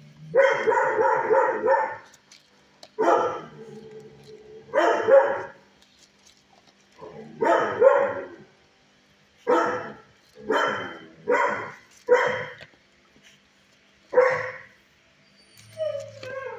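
A dog barking about nine times at uneven intervals, the first bark drawn out for over a second, with a short falling whine near the end.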